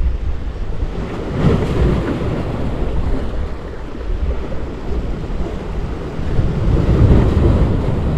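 Sea waves surging and washing against a concrete-block breakwater, with wind buffeting the microphone. The wash swells about a second and a half in and again near the end.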